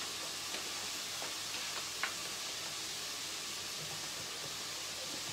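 Steady faint hiss with a few soft clicks, the sharpest about two seconds in, as a spoon knocks against a mayonnaise jar and a glass mixing bowl.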